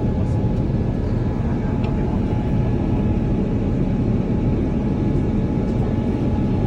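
Steady airliner cabin noise: the even rumble of engines and airflow heard from inside the passenger cabin, with a faint steady tone above it.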